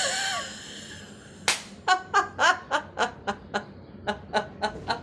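A woman's forced snoring in-breath trails off, then about a second and a half in she laughs out in a run of short breathy 'ha' bursts, about four a second: the laugh-out half of a laughter-yoga snore-laughter exercise.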